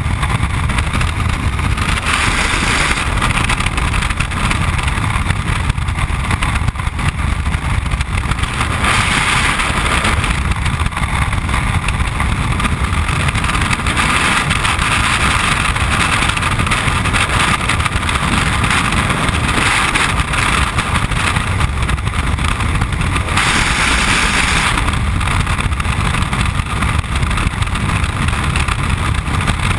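Freefall wind rushing over the camera's microphone in a steady, loud roar, swelling a little in strength now and then.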